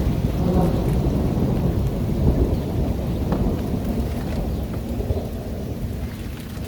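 Rolling thunder rumbling deep and low, easing off over the last couple of seconds, with rain falling.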